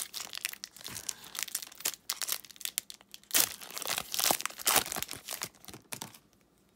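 A trading card pack's foil wrapper being torn open and peeled back by hand: an irregular run of crinkling and tearing that stops about six seconds in.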